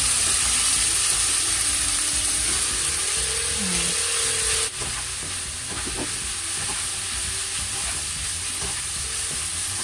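Bitter melon pieces sizzling in a hot frying pan with pork and onion as a slotted spatula stirs them in, with a few light spatula scrapes. The sizzle drops suddenly about halfway through and carries on quieter.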